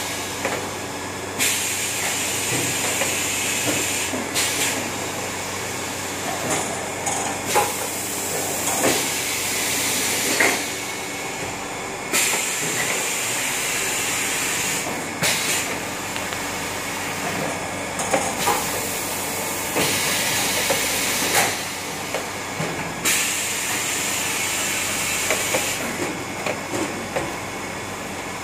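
Stainless steel slat-chain bottle conveyor running, a steady mechanical rattle with scattered clicks. Loud hissing comes and goes on top of it in spells of about three seconds, four times.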